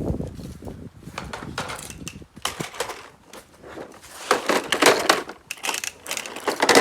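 Irregular plastic clattering and rattling of children's toy push lawn mowers being handled and wheeled, busiest in the second half.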